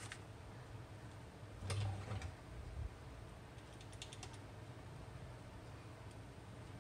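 Faint computer keyboard typing: a few scattered key clicks, with a quick run of four or five about four seconds in, and a soft low thump just before two seconds in.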